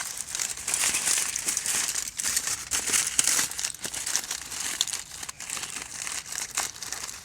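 Wrapping material being crinkled and folded tightly around a smoked boneless turkey breast: a continuous irregular crackling and rustling.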